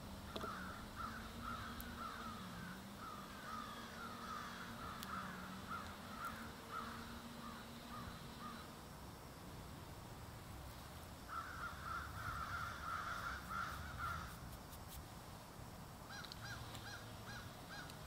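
Birds calling in the background: runs of quick, harsh repeated notes through the first half and again about eleven to fourteen seconds in, then a short series of evenly spaced calls near the end. A faint steady hum runs under the first half.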